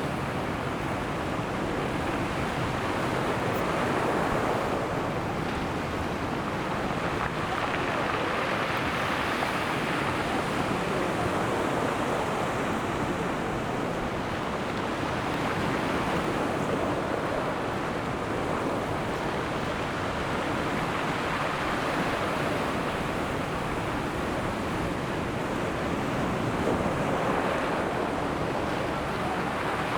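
Sea surf: waves washing in a continuous rush that swells and eases every several seconds.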